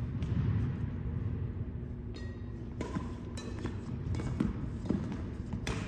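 Badminton rally: rackets striking a shuttlecock in several sharp cracks from about two seconds in, with footsteps on the wooden court floor over the steady hum of a large hall.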